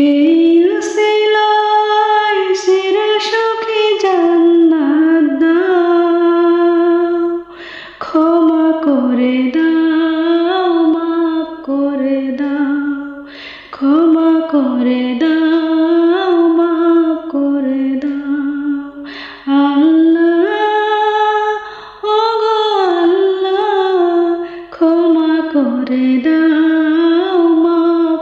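A woman's solo voice singing a Bengali nasheed (Islamic devotional song), in long sliding phrases with short pauses between lines.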